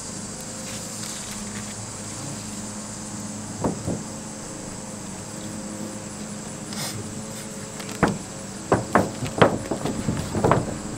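Steady high insect chirring in the background, with a couple of knocks about four seconds in; from about eight seconds in, a quick, irregular run of taps and knocks from hands and a roll of flashing tape working on synthetic roof underlayment.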